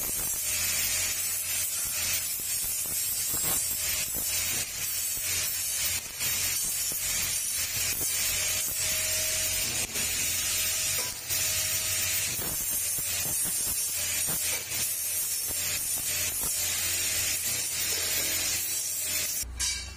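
Electric arc welding on square steel tubing: a steady crackling sizzle over a low hum, broken by a few short dips where the arc falls off, stopping just before the end. The welds are added to hold the frame's joints together when it is lifted.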